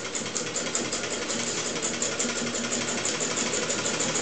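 Hand-cranked Standard Manufacturing Company sewing machine, a Singer 15K clone, stitching through denim: an even mechanical clatter at about five stitches a second, growing louder as it gets going.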